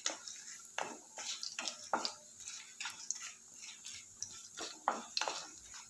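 Wooden spatula stirring and scraping whole spices around a metal kadhai, short irregular scrapes and light knocks about twice a second.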